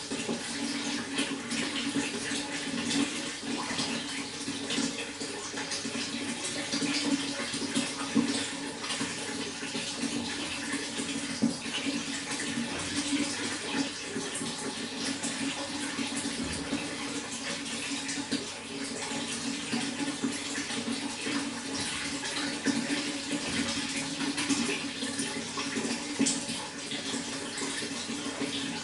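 Running water flowing steadily, with many small irregular splashes.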